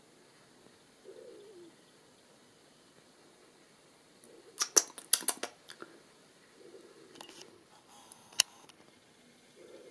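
Wood pigeon cooing: a few soft, low coos about a second in, again past the middle and near the end. Between them comes a cluster of sharp clicks and knocks about halfway through, and another single click near the end, louder than the coos.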